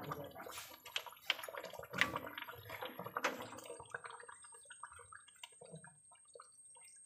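Fish curry bubbling as it simmers in a steel kadai on a gas burner. Several sharp clinks and knocks of steel utensils come in the first few seconds, then only faint bubbling.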